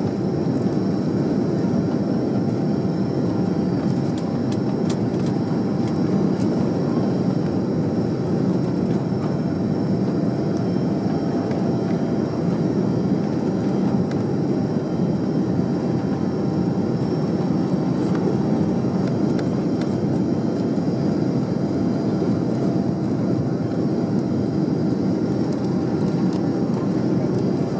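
Cabin noise of an Airbus A330-300 airliner on final approach: a steady rush of airflow and engine drone heard through the fuselage, with faint steady whines above it.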